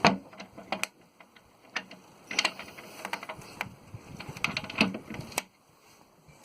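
A series of irregular clicks and knocks, the loudest right at the start, with a few more clustered about two and a half and five seconds in.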